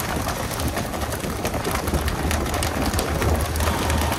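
Pole-and-line tuna boat's water sprays hissing and pattering onto the sea surface, the spray system used to keep the tuna school near the boat, over a steady low engine hum, with many small scattered clicks and slaps.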